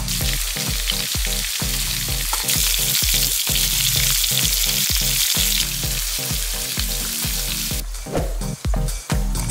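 Pieces of pork belly sizzling as they fry in a non-stick pan, the sizzle strongest in the middle and cutting off near the end. Background music with a steady beat runs underneath.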